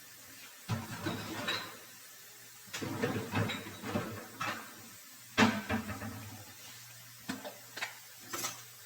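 Kitchen handling noises: irregular knocks and clatters of utensils and containers being moved and set down, over a faint low hum.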